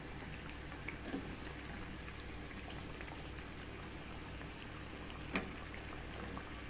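Hot oil sizzling and bubbling steadily around surya kala dough pastries as they deep-fry. A couple of light clicks of the steel slotted spatula against the pan as they are turned, about a second in and again past five seconds.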